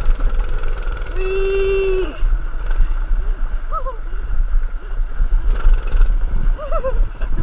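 105cc mini bike's small engine running at speed, heavily buffeted by wind on the microphone. A short steady tone sounds for about a second, about a second in.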